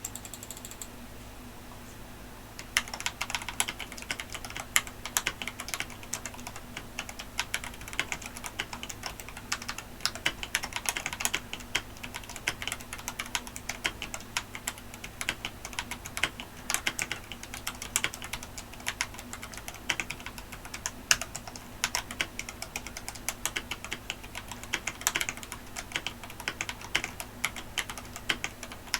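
Typing on a mechanical keyboard with Ajazz Diced Fruit Banana tactile switches: a fast, irregular run of crisp keystrokes, each ending in a mid-range clack as the key bottoms out. The typing starts about three seconds in, over a low steady hum.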